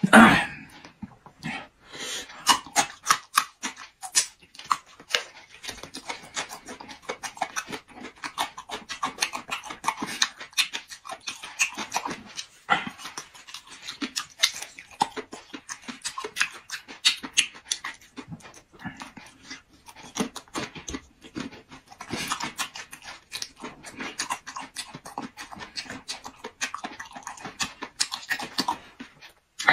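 Close-up chewing of boiled beef large intestine: a dense run of irregular mouth clicks and smacks, with louder clusters now and then.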